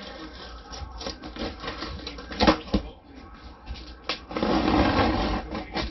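Cardboard box of a new microwave being opened by hand: a few sharp knocks and handling noises, then a longer rasping tear, like packing tape or cardboard ripping, starting about four seconds in and lasting just over a second.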